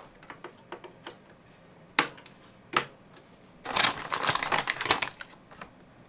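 A DDR ECC registered memory stick being pressed into a server motherboard's DIMM slot: small ticks, then two sharp clicks about two and three seconds in as the slot's retention clips snap shut. About a second later comes a stretch of plastic anti-static bag crinkling.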